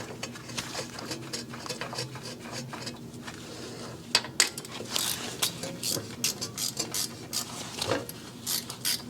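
Ratchet wrench clicking in short irregular runs as a wheel hub assembly bolt is turned in, with sharp metal clicks coming thicker from about halfway through.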